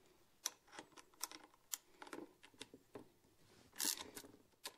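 Light, irregular clicks and taps of the 4 mm Allen screws being undone and the rear mudguard being worked loose on a motorcycle, with one short scrape about four seconds in.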